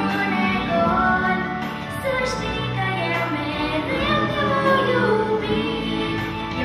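A young girl singing into a microphone over instrumental accompaniment, her sung notes gliding and held.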